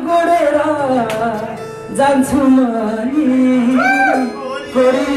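Live Nepali dohori folk song: a singer's voice over guitar accompaniment, the sung line bending up and down in pitch.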